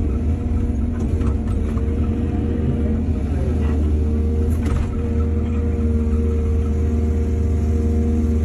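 Excavator's diesel engine running steadily under hydraulic work, the engine note dipping briefly about three and a half seconds in. A few short metallic knocks come about a second in and again near five seconds.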